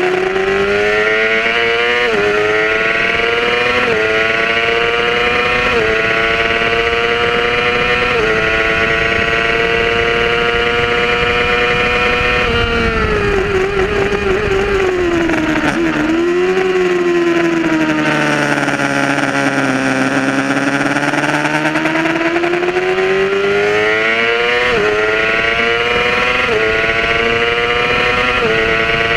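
Yamaha R6 sport bike's inline-four engine at racing revs on track: it climbs through the gears with an upshift every two seconds or so, then drops in pitch with quick throttle blips as it brakes and downshifts for a slow corner about halfway through. It pulls slowly out from low revs and upshifts again several times near the end, with wind noise over it.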